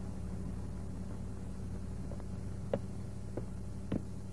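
Steady low hum and faint hiss of an old film soundtrack, with a few faint clicks in the second half.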